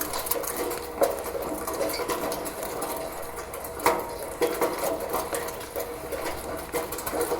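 Rain on a gutter: a dense, irregular patter of drips and taps over a steady wash of rain, with a few louder drops striking about a second in and again near the four-second mark.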